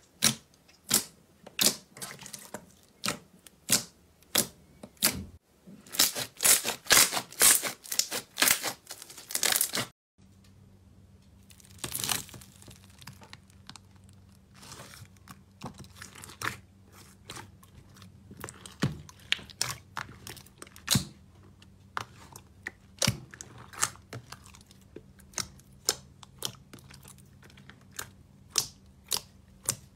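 Pink slime squished and pressed by hands, with sharp pops and crackles of trapped air. The pops come thick and fast in the first ten seconds, then after a cut turn into scattered, softer clicks as fingers press into thicker slime in a plastic tub.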